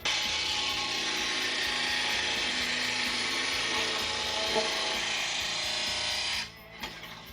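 Blade grinder's abrasive wheel grinding the cutting edge of a steel lawn mower blade, a steady grinding hiss that drops away for about a second near the end as the wheel comes off the steel.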